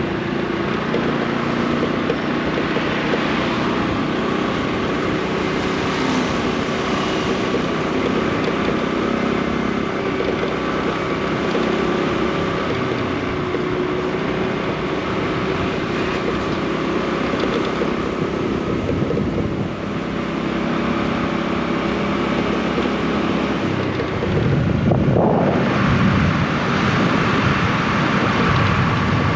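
Motorbike engine running during a ride through city traffic, with wind noise on the microphone. Near the end the engine note rises briefly and the low rumble grows louder as it revs.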